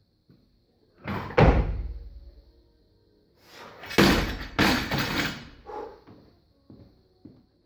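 Olympic barbell loaded with rubber bumper plates: a loud clank about a second and a half in, then the bar dropped onto the rubber-matted platform about four seconds in. It lands with a heavy thud, bounces a second time half a second later, and rattles to rest with a few fainter knocks.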